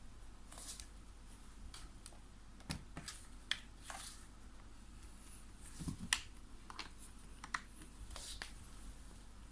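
Irregular small plastic clicks and short scrapes from handling a laptop while its bottom cover panel is put back on after a RAM upgrade.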